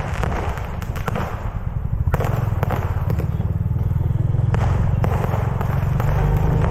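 Firecrackers going off nearby in scattered sharp cracks, several over a few seconds, over a steady low rumble.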